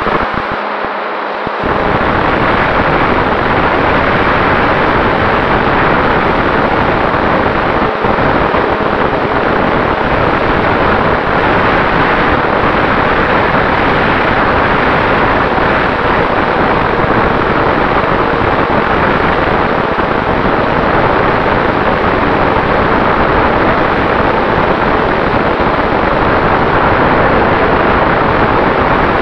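Airflow and propeller noise heard on the onboard camera of a radio-controlled Cessna 188 model plane in flight: a loud, steady rush of wind over the microphone with the motor and propeller, and a faint steady tone running underneath. The rush fills out in the low end about a second and a half in.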